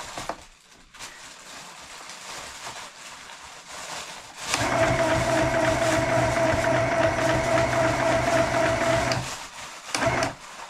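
Small electric sewing machine running and stitching for about five seconds, starting about four seconds in and stopping suddenly: a steady motor whine with the rapid chatter of the needle.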